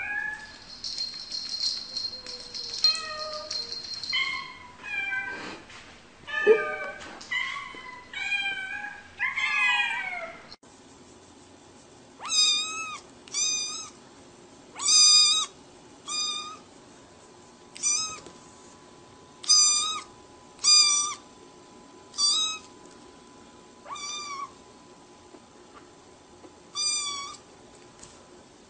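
A cat meowing over and over. In the first ten seconds the meows are varied and crowded together. Then, after a short break, comes a string of separate short meows that rise and fall in pitch, about one every second or two.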